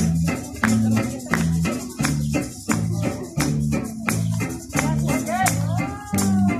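Upbeat music with a repeating bass line and a steady rattling shaker beat, with a gliding melody line coming in near the end.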